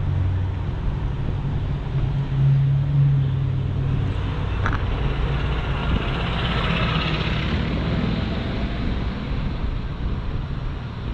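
A car engine running at low revs nearby, a steady deep rumble that swells briefly about two and a half seconds in.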